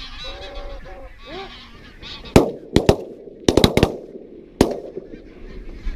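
Geese honking, then about two seconds in a volley of shotgun fire from several hunters: seven or eight shots in quick succession over about two and a half seconds, each followed by a short ringing echo.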